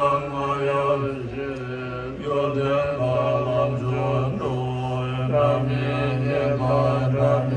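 Tibetan Buddhist mantra recitation: low voices chanting in unison on one held pitch, with short breaks for breath every second or so.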